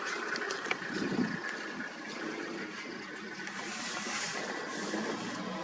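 Male lion chewing and tearing at a warthog carcass: wet gnawing, with a few sharp clicks early on.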